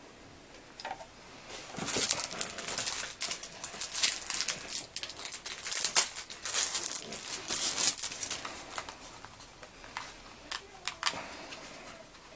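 Hands rustling and crinkling packaging, with many small sharp clicks, busiest from about two to eight seconds in, then sparser handling noises.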